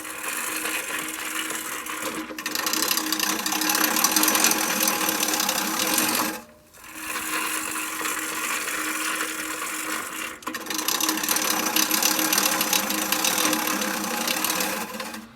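Manual push reel lawn mower rolling through tall grass, its spinning reel blades cutting with a steady mechanical whir. It stops briefly about six and a half seconds in, then runs again, with a short dip near ten and a half seconds.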